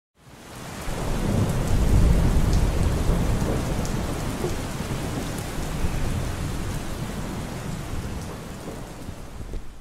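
Steady rain with a long rolling rumble of thunder that swells in over the first second, is loudest about two seconds in and slowly dies away, with faint scattered drop ticks.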